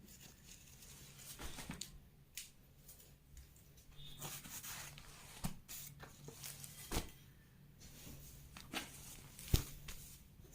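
Faint rustling and handling of sarees, cloth moving and being folded, with a few sharp clicks and crackles over a low steady hum.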